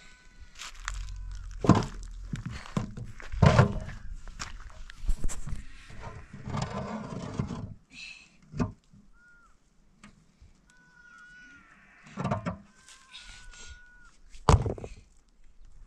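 Rough stones being lifted and dropped onto a dry-stone pile: a string of heavy stone-on-stone knocks, with scraping between them and the loudest knock near the end. Short, thin animal calls sound faintly in the background.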